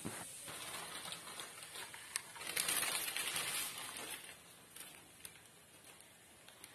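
Kitchen knife cutting through slices of white bread on a plate: a scratchy rasp, loudest for about a second and a half near the middle, with a few light clicks.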